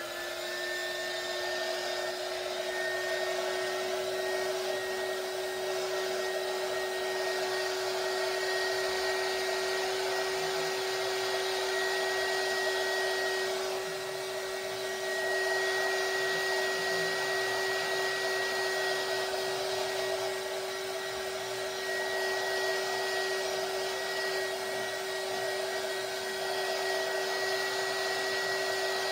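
Handheld craft heat tool blowing steadily: a fan-motor hum with a high whine over rushing air, drying wet texture paste. It dips briefly in level about halfway through.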